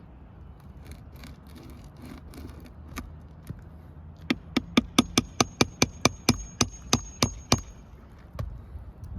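Hammer striking a metal pry tool in a quick run of about fifteen sharp blows, about five a second, with a thin metallic ring, after a few seconds of light ticking and scraping. The blows drive the tool under an asphalt roof shingle to work the nails loose.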